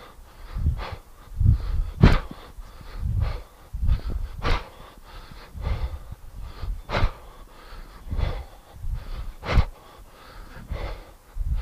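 A man's hard breathing while swinging a heavy kettlebell through repeated cleans: a short, sharp exhale on each rep, about one every second and a quarter, with lighter breaths in between.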